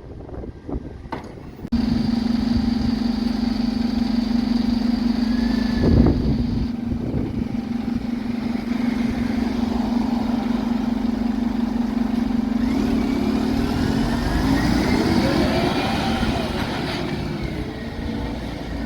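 Dennis Elite 6 refuse truck's engine running with a steady drone that starts suddenly a couple of seconds in, with a single thump near the middle; later the engine note rises and bends as it revs.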